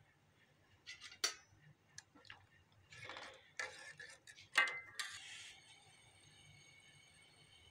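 Milk tea boiling in a steel pan, giving irregular pops and clicks with a few short hissing bursts. A sharper metallic clink rings briefly about four and a half seconds in. After that only a faint steady high hum is left.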